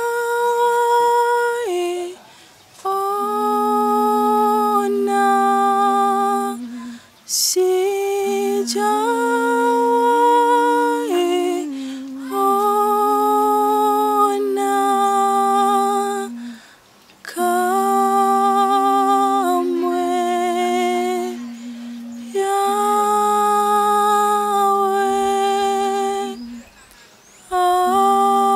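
Unaccompanied gospel singing: a woman's voice holding long, steady notes in phrases of a few seconds with short breaks between, and a second, lower voice in harmony.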